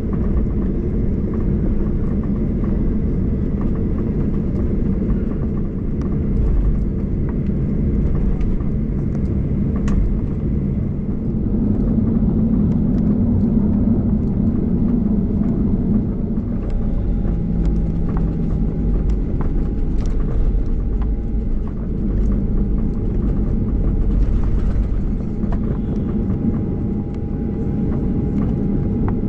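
Cabin noise of a Ryanair Boeing 737 taxiing after landing: a steady low rumble from the engines at idle and the rolling airframe, with a faint steady whine coming in about eleven seconds in and a few light clicks.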